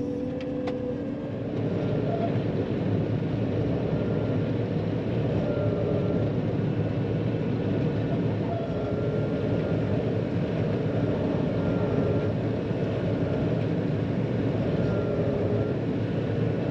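John Deere 9500 combine running, a steady low engine and machinery drone with faint whining tones that drift up and down; it grows a little louder about a second and a half in.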